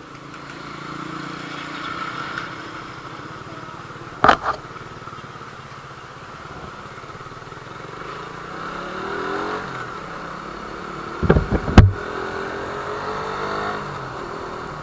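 Suzuki Raider 150 Fi's single-cylinder engine pulling away and accelerating, its pitch rising as it revs through the gears. Sharp thumps break in once about four seconds in and again, louder and in a quick cluster, about three quarters of the way through.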